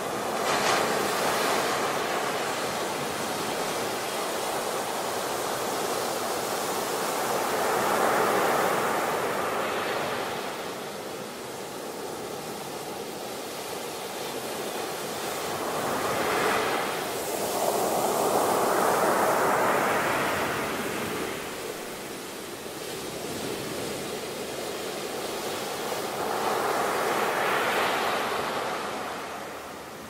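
Ocean surf on a beach: waves breaking and washing in, a steady rushing noise that swells and falls back about four times, roughly eight to ten seconds apart.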